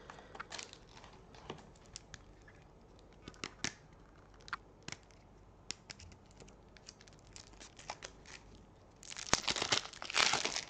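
Thin plastic wrapping crinkling and tearing as a deck of playing cards is unwrapped, with scattered light clicks of cards being handled. The crinkling is loudest in a dense stretch near the end.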